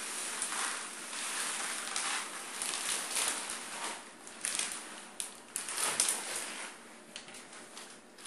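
Pebble-type cat litter pouring from a plastic bag into a plastic tray of cassava flour: a steady hiss of granules for about four seconds, then shorter, uneven rattling spills as the last of the bag is shaken out.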